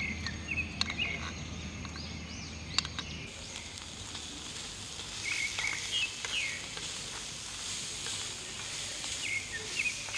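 Diced onions sizzling in a small frying pan on a portable gas burner, a steady hiss that grows fuller about three seconds in. A few sharp clicks of the wooden spoon against the pan come in the first seconds, and birds chirp briefly now and then.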